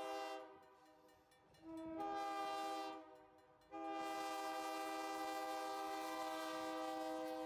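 Diesel locomotive's air horn sounding a chord of several notes in the grade-crossing pattern: a long blast ending just after the start, a short blast about two seconds in, then a long blast from about four seconds in that holds to the end.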